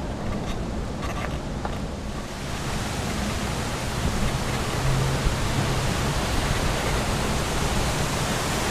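Water splashing from a large plaza fountain: a steady rushing hiss that swells in about two and a half seconds in and then holds, over a low rumble from the moving bicycle.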